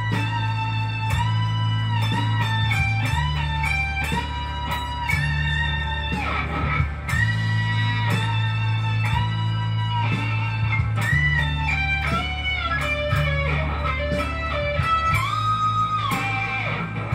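Improvised electric guitar lead over a backing track. Long held notes slide and bend in pitch between quicker runs, over a steady bass line that shifts note every few seconds.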